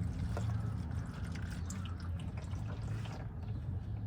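Engine oil from a 2014 Scion tC's oil pan draining out of the drain-plug hole into a catch pan: a steady pouring trickle with a few faint drips, over a steady low hum.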